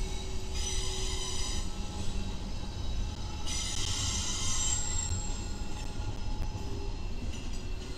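Freight train rolling past with a steady low rumble, its wheels squealing on the rails in two spells: about half a second in, and again from about three and a half seconds in for a second or so.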